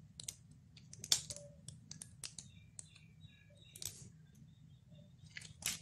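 Faint, irregular clicks and small handling noises of a plastic piping bag being squeezed as chocolate syrup is piped onto the pastry, over a low steady hum. A few faint short high chirps sound in the background midway.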